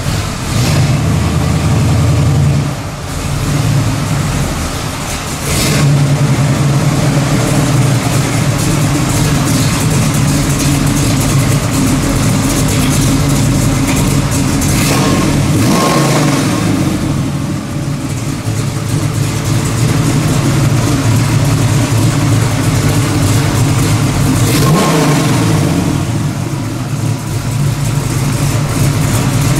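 A 1967 Camaro's 502 cubic-inch GM Performance Parts big-block V8 idling, revved briefly several times. The clearest revs rise and fall about halfway through and again near the end.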